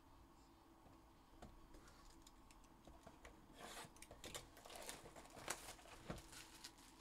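Faint handling noises of a sealed cardboard hobby box of football cards: scattered clicks, then a busier stretch of rustling, crinkling and sharp taps as the box is turned over and worked open by hand.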